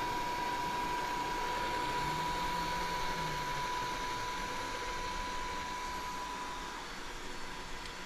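Xiaomi Mi Robot Vacuum Mop 2 Ultra running as it drives back to its charging dock: a steady whir with a thin high whine, growing a little quieter near the end.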